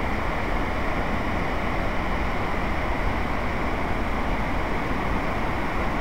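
Whitewater rapids and a small waterfall rushing over rock ledges: a steady, even rush of water.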